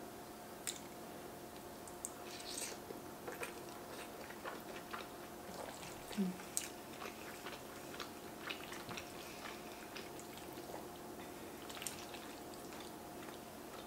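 Close-up chewing of a mouthful of beef stroganoff and egg noodles: soft, wet mouth clicks and smacks at irregular intervals. Chopsticks stir the noodles in the bowl, over a faint steady hum.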